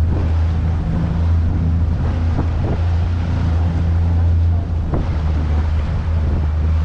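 Zodiac boat's outboard motor running at a steady pitch, with wind buffeting the microphone and a few short knocks.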